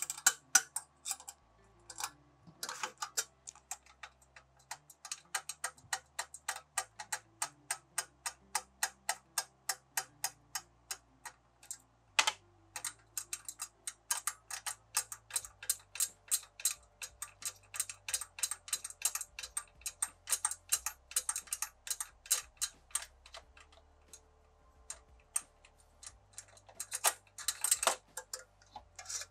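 A 7/16-inch ratchet clicking in long, even runs of about four clicks a second as nuts are run back onto the ends of precision mounting frames, with a short pause near the end.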